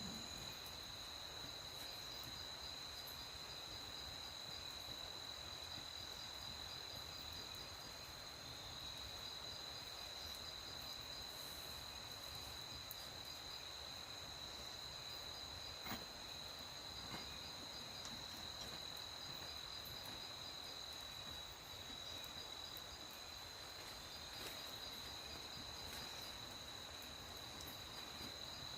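Night insects, crickets, trilling in a steady high-pitched chorus, with one short click about halfway through.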